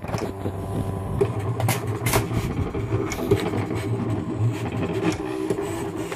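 Silhouette Cameo 2 cutting machine running, its stepper motors whirring and changing pitch as the tool carriage and rollers move, with frequent short clicks.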